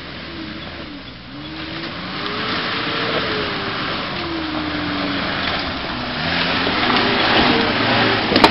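Off-road SUV engine revving up and down as it drives through a muddy rut, getting louder as it approaches and passes close by, with tyres churning the mud. A sharp knock near the end.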